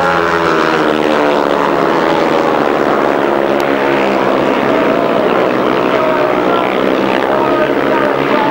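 Grasstrack solo racing motorcycles running hard in a pack. Several engines are heard at once, their pitch dipping and rising as the riders shut off and open up again through the bend.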